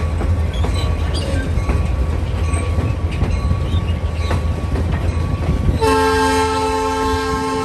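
Train running with a heavy rumble and the clicking of wheels on the rails. About six seconds in, the horn sounds a steady chord of several notes and holds it to the end.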